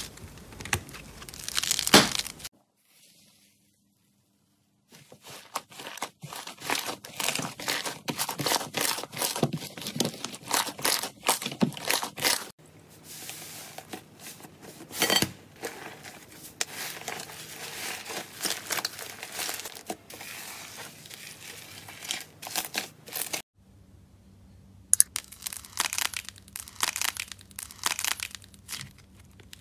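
Hands squeezing, pressing and pulling thick slime, which gives off dense crackling and popping sounds from trapped air. The sound drops out for about two seconds near the start and briefly again near the end.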